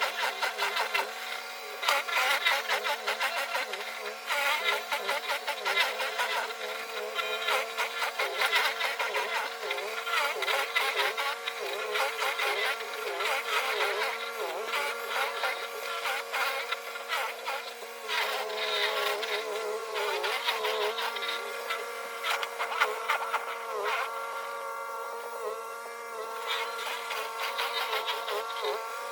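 Snow Joe ION100V cordless electric snow blower running, its motor giving a steady buzzing whine that sags and recovers in pitch as it works, over a constant crackle of snow being thrown.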